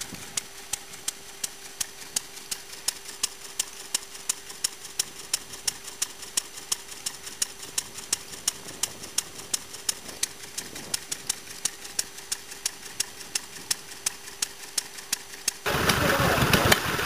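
Small vintage stationary engine running steadily while pumping water, with a sharp, regular beat about two and a half times a second. Near the end it cuts to a second, air-cooled stationary engine driving a pump, running much louder.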